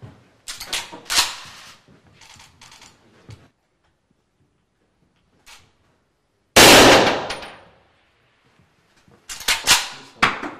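A single shot from an SV-98M bolt-action sniper rifle about six and a half seconds in, with a report that fades over about a second. Sharp metallic clicks and clacks come before and after it.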